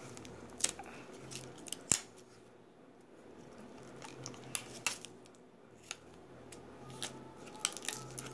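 Handling noise of a handheld phone: scattered short, sharp clicks and light rustles over faint room hiss, the loudest click about two seconds in.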